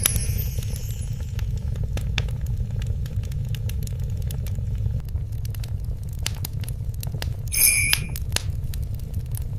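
Fireplace fire crackling: scattered sharp pops and clicks over a steady low rumble, with one brighter, briefly ringing burst near the end.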